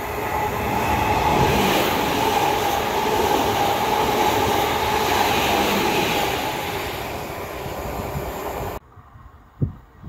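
A South Western Railway electric multiple unit passing close by on the platform line: a loud rush of wheels on rail with a steady whine, swelling as it goes past and easing off after about six seconds. It cuts off suddenly near the end, leaving low, irregular thumps of wind on the microphone.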